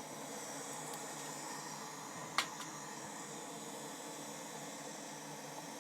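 Faint steady background hiss, like a small fan, with a single faint click about two and a half seconds in.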